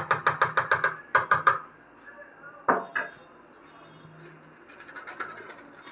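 A metal spoon tapping against a steel bowl: a quick run of taps, about seven a second, over the first second, then three more taps and two single knocks. Faint rustling of a spice packet being emptied follows near the end.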